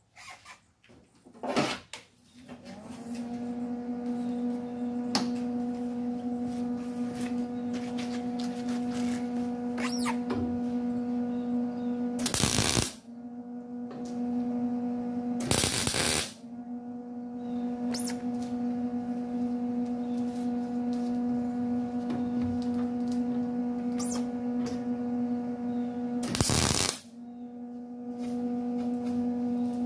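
MIG welder laying three short tack welds on sheet-metal patch panel, two close together midway and one near the end. A steady electrical hum runs between them.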